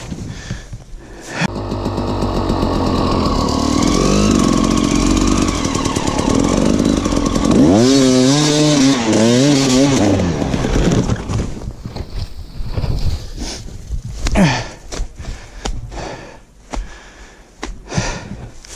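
Dirt-bike engine of an enduro motorcycle starting up about a second and a half in and running. It revs up and down several times in the middle, then drops away, followed by scattered knocks and clicks.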